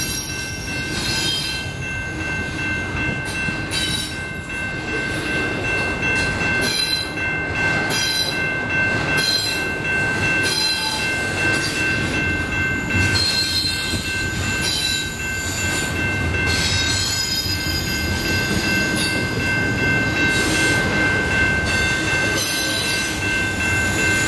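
Loaded double-stack container well cars of a freight train rolling past, steel wheels clicking rhythmically over the rail with a continuous rumble. A steady high-pitched wheel squeal is held throughout.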